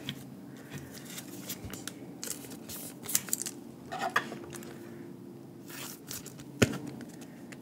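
Trading cards being slipped into plastic sleeves and rigid top loaders: soft plastic rustling with a few light clicks and taps scattered through.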